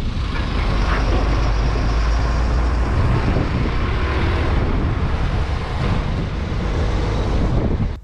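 Steady road and engine noise of a moving vehicle, heaviest in the low rumble. It cuts off suddenly at the end.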